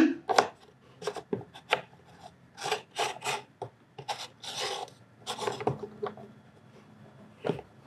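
A wooden puzzle piece scraping, rubbing and tapping against a wooden puzzle board as it is pushed and worked into its slot, in a string of short knocks and a few longer scrapes.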